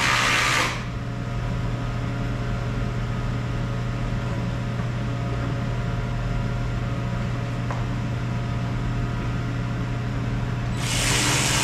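A hand-held power drill runs in two short bursts, one for under a second at the start and one for about a second and a half near the end, driving in the fender flare's screws. A steady low hum fills the gap between them.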